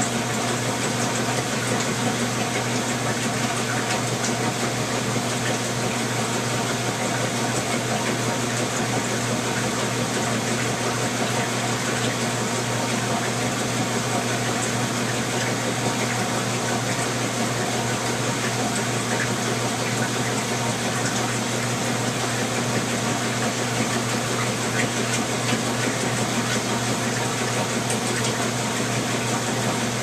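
Whirlpool Heavy Duty Super Capacity top-loading washing machine running with its lid closed: a steady rush of water under a low, even hum.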